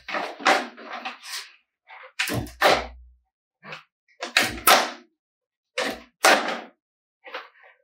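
Gasketed metal plates of a plate heat exchanger knocking and clacking against one another as they are slid one at a time along the frame's carrying bar: a dozen or so separate knocks at irregular spacing, some with a dull thud beneath.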